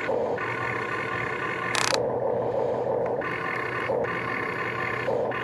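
Small electric gear motors of an RC excavator whining as its boom and arm move, the whine starting and stopping every second or so as different functions are worked. A short scrape about two seconds in.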